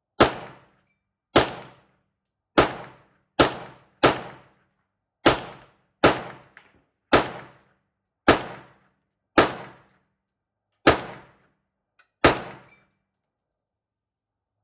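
Twelve gunshots from a semi-automatic firearm, fired one at a time about a second apart at an uneven pace. Each shot is a sharp crack with a short ringing tail.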